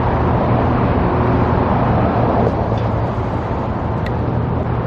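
Steady motor-vehicle noise: a constant low engine hum under a wash of traffic noise.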